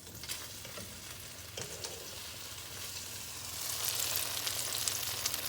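Egg-dipped bread slices and croissants frying in melted butter and vegetable oil on medium heat: a steady sizzle with fine crackles, growing louder a little past halfway.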